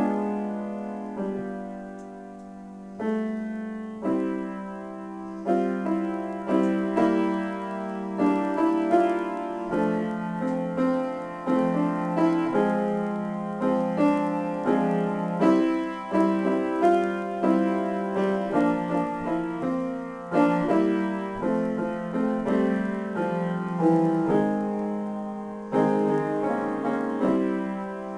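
Solo grand piano improvisation. A loud chord is struck at the start and left to ring and fade, then new notes come in, and from about five seconds in a busier run of chords and melody is played.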